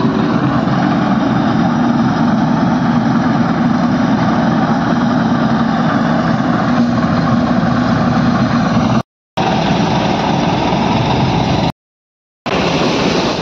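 Combine harvester's diesel engine and threshing machinery running steadily while it harvests paddy. The sound breaks off twice for a moment near the end.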